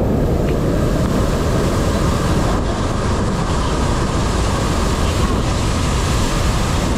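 Monsoon-swollen waterfall in full flood, muddy water crashing over rocks at close range: a loud, steady rush of water.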